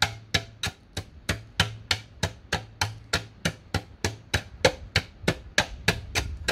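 Steady run of sharp knocks, about three a second, from the ground being struck over and over above a buried vibration sensor to imitate a passing train's vibration.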